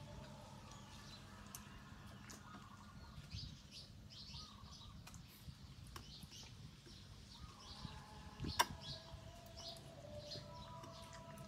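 Small birds chirping over and over, fairly faint, with one sharp click about two-thirds of the way through.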